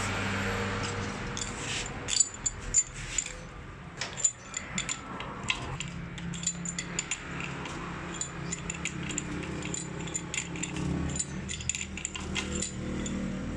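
Irregular sharp metallic clinks and clicks of a steel adjustable wrench on the delivery-valve holders of a Toyota 5L diesel injection pump head held in a bench vise, as the wrench is fitted, turned and repositioned. The loudest clinks come a couple of seconds in.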